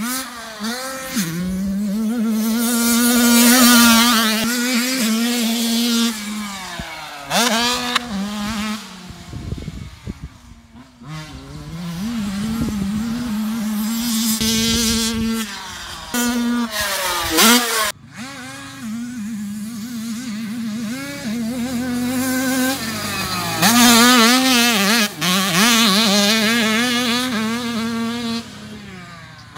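Motocross dirt bike engine revving hard on the track. The pitch holds high for stretches, then drops and climbs again several times as the throttle is chopped and opened and the gears change.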